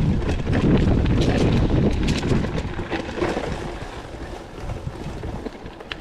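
Wind rumbling on the microphone of a GoPro carried on a moving mountain bike, with rapid clicks and rattles from the bike and tyres on a dirt trail. Loudest in the first half, easing off near the end.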